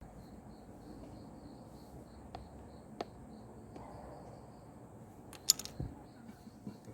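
Slime being handled, with a few soft sharp clicks and then a louder cluster of clicks and pops about five and a half seconds in. A faint, regular high chirping, about three a second, runs behind it.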